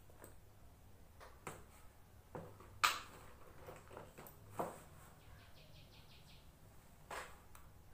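Soft handling sounds at a desk: a pouch and book being moved and set down, a few light taps and rustles, the sharpest about three seconds in. Between five and six seconds in, a faint quick trill of about seven high notes from a bird outside.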